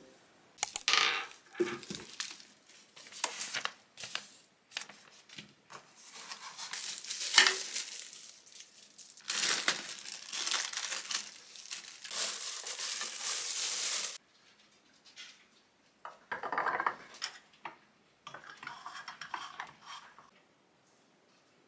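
A brass table lamp and its fabric shade being unwrapped and put together by hand: plastic wrapping crinkling, with clinks and taps of the metal parts, in irregular bursts. The crinkling is densest and longest in the middle, then gives way to a few softer rustles.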